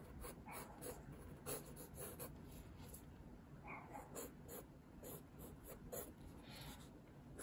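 Faint pencil strokes scratching on sketchbook paper: many short, quick, irregular strokes sketching in hair.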